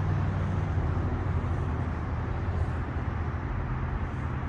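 Steady low rumble of a motor vehicle running nearby, easing off slightly toward the end.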